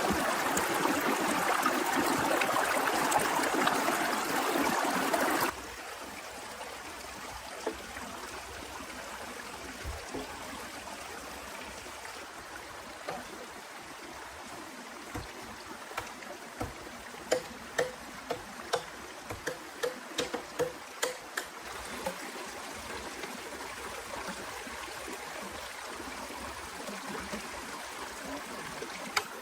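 Rain falling hard and steadily. It cuts suddenly to a softer steady hiss about five seconds in. Scattered sharp ticks and taps come through in the second half.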